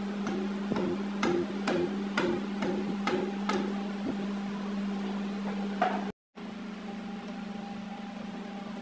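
Piston being tapped into the cylinder bore of a Daewoo six-cylinder diesel block through a ring compressor with the end of a hammer handle: about eight light knocks over the first six seconds, over a steady hum.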